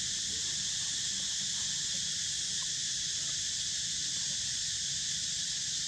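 A steady, high-pitched chorus of forest insects, droning without a break.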